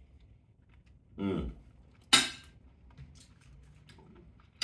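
Metal fork and knife working on a baked potato boat on a wooden board: one sharp clink with a short ring about two seconds in, a duller knock a little before it, and faint small taps.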